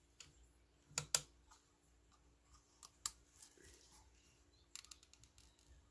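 Faint handling noise of small plastic decorative lanterns, with a few sharp clicks: a close pair about a second in, another near three seconds, and a quick cluster near five seconds.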